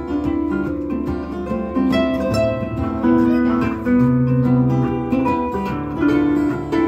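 Lever harp and acoustic guitar playing an instrumental passage together, a run of plucked harp notes over the guitar.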